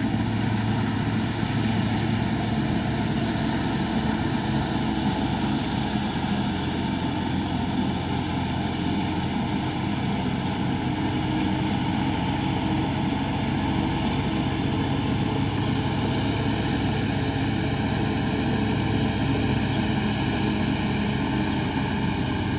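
New Holland 6010 tractor running steadily under load while pulling a straw reaper through wheat stubble, a continuous, even machine drone.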